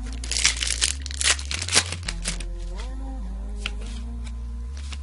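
Foil Yu-Gi-Oh booster pack wrapper crinkling and tearing open: a burst of crackly rustling for about two seconds, starting shortly after the beginning.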